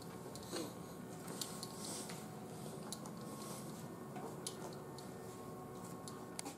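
Quiet hospital-room tone: a faint steady hum with scattered small clicks and taps from eating at a bedside plate.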